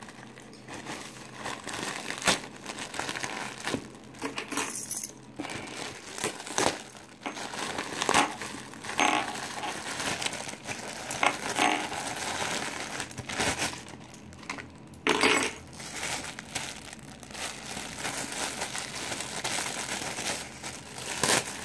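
Plastic courier mailer and clear polybag crinkling and rustling in the hands while a bagged cycling jersey is unwrapped, with irregular sharp crackles.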